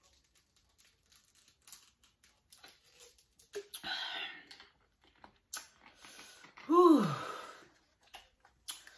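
Small clicks and crinkles from a plastic water bottle as a woman drinks. About four seconds in comes a breathy exhale, and about seven seconds in a short voiced sigh that falls in pitch, the loudest sound.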